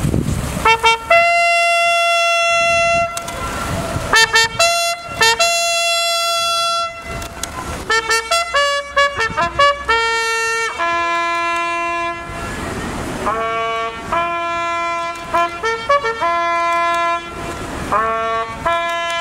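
A lone bugle sounds a slow remembrance call. It plays a few open notes, a mix of quick short ones and long held ones.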